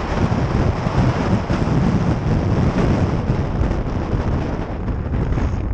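Wind buffeting the microphone of a helmet camera on a moving motorcycle: a steady low rumble and hiss.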